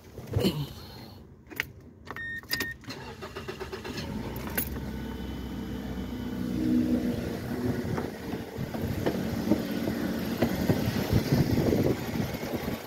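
Clicks and a brief electronic beep, then a Mazda 3's engine starting a few seconds in and running steadily, louder from about the middle.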